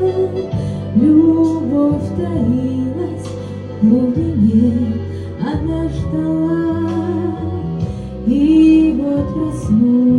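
A woman singing a slow song with held, wavering notes over a steady instrumental accompaniment.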